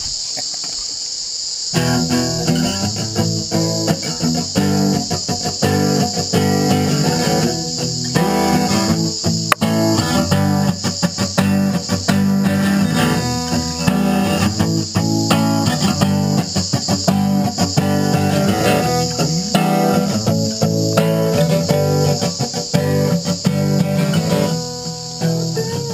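Acoustic guitar strummed and picked as the intro to a song, starting about two seconds in. A steady high-pitched insect chirring runs underneath throughout.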